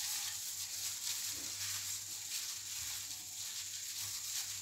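Faint rustling and handling noise from a plastic-gloved hand turning a breaded scotch egg in a ceramic bowl of egg wash, over a steady background hiss and low hum.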